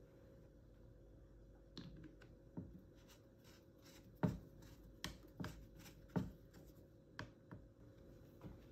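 Flat-blade screwdriver turning the plastic carbon-brush cap on a Makita 6347D cordless drill's motor housing, screwing it back in over a fresh brush: about ten sharp clicks and scrapes at uneven spacing, the loudest about four seconds in.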